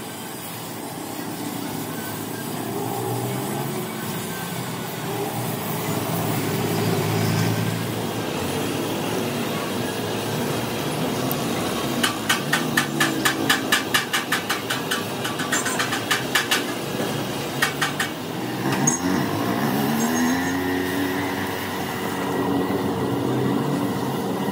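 Workshop background with a motor vehicle engine running and revving up. In the middle comes a quick run of sharp taps, about four a second, lasting several seconds.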